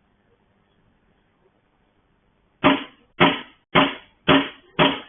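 Someone pounding on a gate with heavy, even blows, about two a second, each ringing briefly; the banging starts a little past halfway through, five blows in all here, after a quiet stretch.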